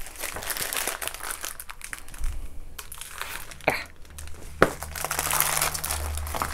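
Plastic packaging of a diamond painting kit crinkling as it is handled and folded, with two sharp clicks around the middle.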